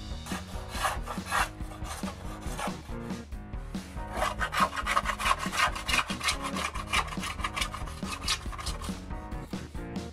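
Quick, repeated scraping strokes of a handheld razor plane shaving a balsa wood leading edge, roughing in its angled shape.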